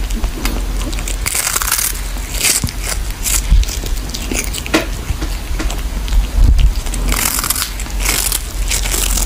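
Cat biting and chewing a dried fish, with crunchy, crackly bites at an uneven pace.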